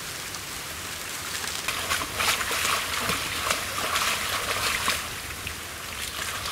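Shallow muddy water splashing and trickling as hands and a plastic fish crate are worked through it. The splashing is busiest from about two seconds in to about five seconds.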